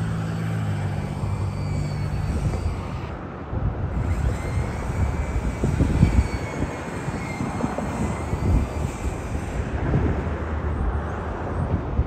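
Heavy construction machinery running at a work site: a steady diesel engine hum for the first three seconds, then an uneven low rumble of engines that rises and falls.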